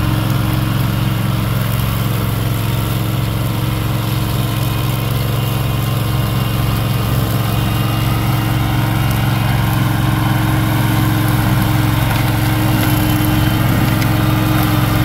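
Engine of a Spyder remote-controlled slope mulcher running steadily as it mows tall grass, getting a little louder over the last few seconds as the machine comes closer.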